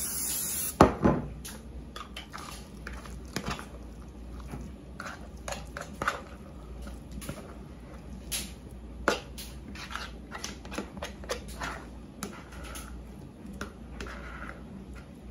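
A brief hiss of nonstick cooking spray that ends with a sharp knock about a second in, the loudest sound. Then a spoon scrapes thick, creamy dip out of a mixing bowl into a ceramic baking dish: scattered wet scrapes, clicks and soft plops.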